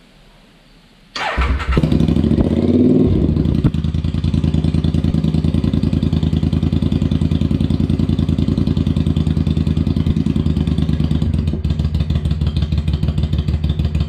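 Triumph Speedmaster 865 parallel-twin engine starting on Emgo shorty tapered pipes: it fires about a second in, rises briefly in revs, then settles into a steady idle with an even, loud exhaust beat.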